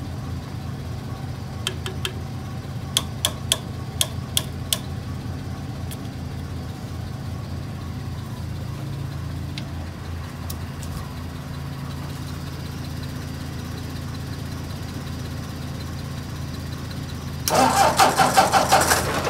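An engine idles steadily, with several sharp clicks a few seconds in. Near the end the Ford 801 Powermaster tractor's engine is cranked on the starter, a loud rhythmic chugging at about five beats a second, as jumper cables are used to try to start it.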